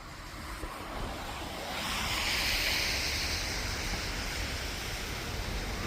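Wind rumbling on the microphone, with a hiss that swells about two seconds in.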